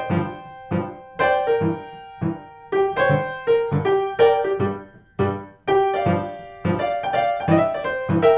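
Background music: a solo piano blues tune playing at a steady rhythmic pace, with regular chords over a bass line.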